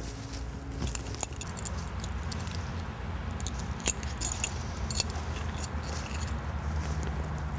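Footsteps and bodies brushing through woodland undergrowth: scattered crackles of twigs and dry leaves over a low, steady rumble.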